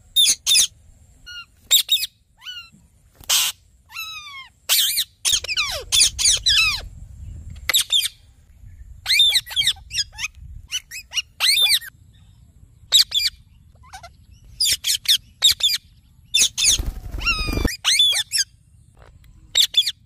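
Indian ringneck parakeets calling: a string of short, shrill screeches and squawks in quick groups with pauses between, some of them sliding down in pitch. About three-quarters of the way through comes a longer, harsher call with a low rumble under it.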